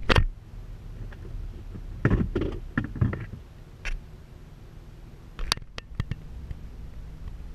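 Inside the cab of a stopped vehicle: a steady low engine hum, broken by a few knocks and clunks, a loud one right at the start, a cluster about two to three seconds in and two sharp ones near the end.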